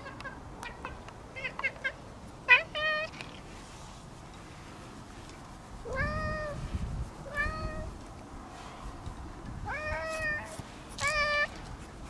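Orange-and-white cat meowing repeatedly as it greets someone: about five separate meows a second or two apart, each rising then falling in pitch.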